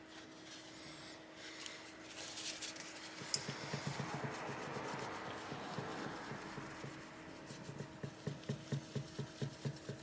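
Tissue paper wet with isopropyl alcohol rubbing over a graphics card heatsink's metal cold plate, wiping off old dried thermal paste. It is a faint rubbing at first, then quick back-and-forth strokes, about three or four a second, near the end.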